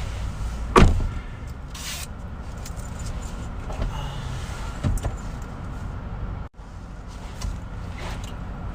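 Steady low rumble, with one loud thump about a second in and a softer knock a few seconds later.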